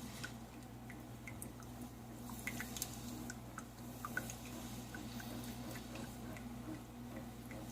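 Keurig 2.0 brewer finishing a slow brew through an ekobrew reusable K-cup: faint, irregular drips and small ticks of coffee running into the mug over a steady low hum.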